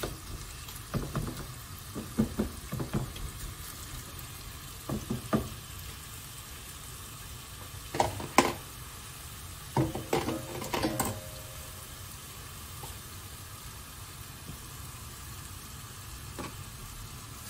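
Marinated beef strips sizzling steadily in oil in a frying pan. A spatula scrapes and knocks against the pan in the first few seconds, and a few more knocks come around the middle.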